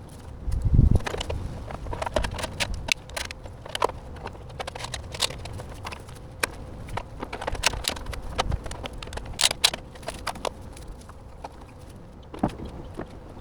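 Rigid foam insulation boards being handled and fitted into wall framing: irregular clicks, knocks and creaks, with one heavy low thump about a second in.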